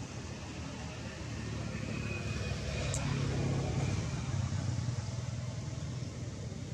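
A motor vehicle engine running off-screen, with a low hum that grows louder about two seconds in and eases off near the end, like a vehicle passing. A single short click about three seconds in.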